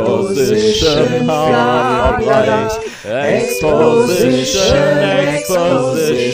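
Music with singing, dipping briefly in loudness about halfway through.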